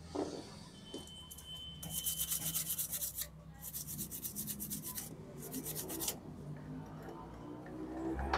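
A brush scrubbing thinner over a car stereo's circuit board to clean the freshly soldered joints, in three bouts of rapid back-and-forth strokes.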